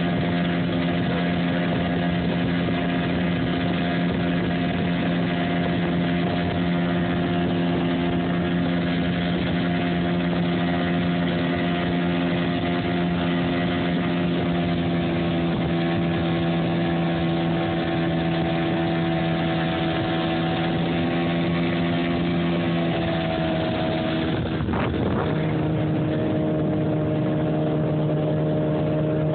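Tiller-steered outboard motor on a Boston Whaler flats boat running steadily at speed, with rushing water and wind under the hull. Near the end a brief click comes, and the engine's pitch settles slightly lower.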